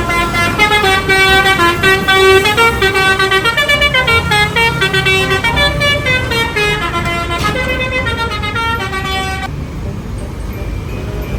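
Telolet bus horn, a Basuri multi-tone musical horn, playing a fast melody of stepping notes over a low engine rumble. The horn stops suddenly about nine and a half seconds in, leaving only the rumble.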